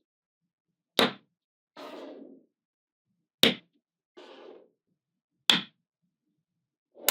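Small magnetic balls snapping together with three sharp clicks, about two seconds apart, each followed by a softer rolling or scraping rustle.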